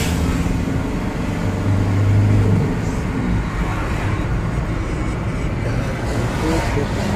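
Engine and road rumble of a moving vehicle heard from inside its cabin, with a low hum that swells briefly about two seconds in.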